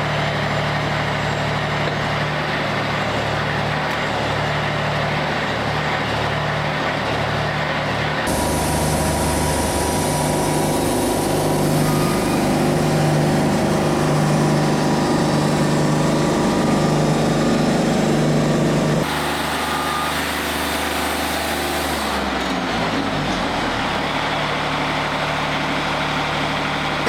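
Wood-Mizer LT40 Wide portable bandsaw mill running and sawing a white oak log, a steady engine hum under the noise of the band blade. The sound shifts suddenly about 8 and 19 seconds in.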